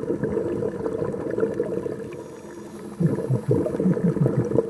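Scuba diver's exhaled bubbles bubbling out of the regulator, heard underwater through the camera housing. There are two long bursts of gurgling with a short lull about two seconds in.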